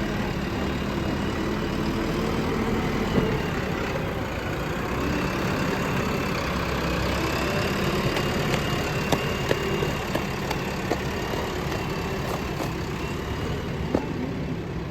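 Diesel engine of a JCB earthmoving machine running steadily, with a few short metallic knocks at irregular moments.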